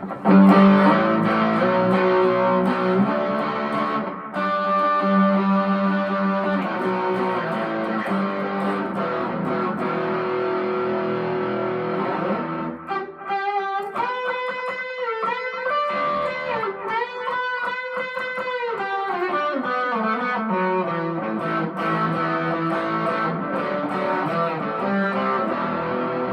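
Telecaster-style electric guitar (Harley Benton TE-25th with Roswell pickups) played through a small Marshall MG15 amp with overdrive: strummed chords, a stretch of single-note picking about halfway through, then chords again.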